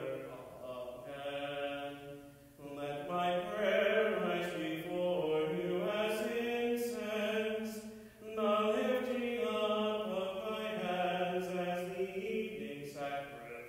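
A man's voice chanting liturgy unaccompanied, in long sung phrases with short breaks about two and a half and eight seconds in.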